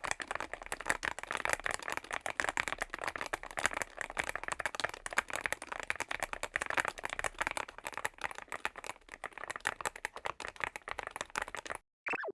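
Fast, continuous typing on a YUNZII AL66 aluminium-case, gasket-mounted mechanical keyboard: a dense stream of key clacks that stops suddenly near the end.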